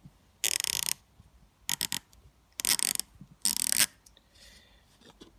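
Snap-on THLF72 quarter-inch 72-tooth flex-head ratchet being swung back and forth, its pawl giving four short bursts of fast, fine clicking.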